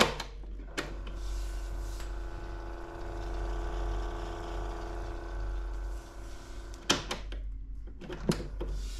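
Sanyo MW160L boombox cassette deck: a key clunks down and the tape music cuts off, then the deck's mechanism whirs steadily for about five seconds as the tape winds at speed. It stops, and the piano-key controls click a few more times near the end.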